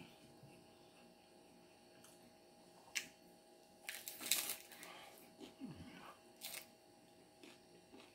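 Crunching of a hard taco shell bitten and chewed close to the microphone: the loudest crunches come in a cluster about four seconds in, with a few single sharp clicks before and after.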